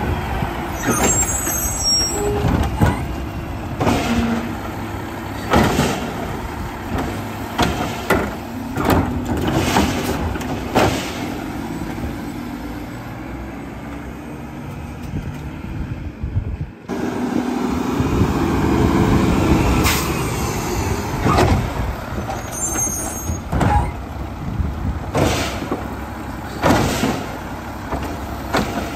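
Mack split-body garbage truck at work: the diesel engine runs and swells in level as the Labrie hydraulic side arm grabs, lifts and dumps a trash cart, with repeated sharp clanks and knocks from the arm and cart against the hopper. Two short high squeals come through over the top.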